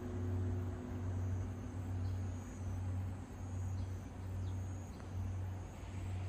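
Large Korean Buddhist temple bell (beomjong) humming on after a strike: a low hum that swells and fades in an even, slow beat a little more than once a second, while a couple of higher tones die away in the first two seconds.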